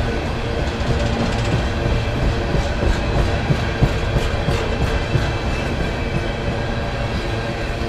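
Empty coal hopper cars rolling past on the rails, a steady rumble with the wheels clattering and a run of sharp clicks and knocks in the middle.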